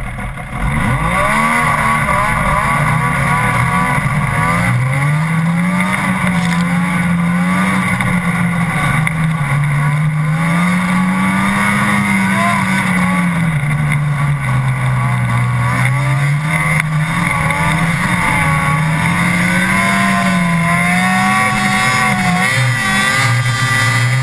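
Snowmobile engine running hard under throttle, heard close up from the sled's hood, its pitch rising and falling again and again as the rider works the throttle, dipping lower and holding near the end.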